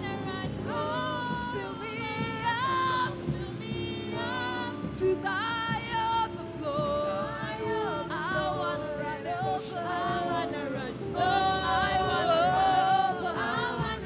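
Worship singing: a lead voice sings long, sliding phrases over sustained backing chords.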